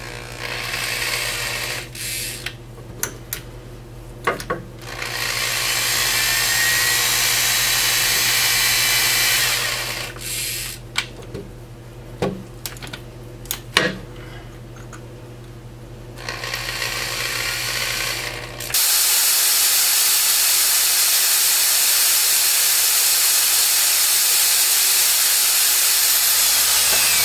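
Angle drill boring a pilot hole into a broken half-inch bolt for a screw extractor. It runs in short spells with clicks and knocks between them, then about two-thirds of the way through it runs in one long steady spell.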